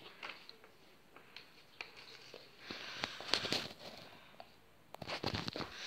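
Faint rustling and light taps of paper cut-out hubcaps being handled, with a couple of short stretches of paper noise between scattered small clicks.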